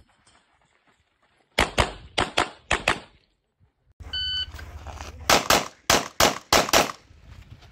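A quick string of about six pistol shots in rapid succession. About four seconds in, the electronic shot timer gives its short start beep, and about a second later a second rapid string of pistol shots follows.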